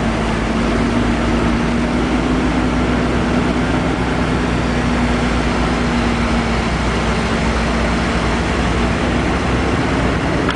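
Heavy truck's diesel engine running steadily, with a constant droning tone.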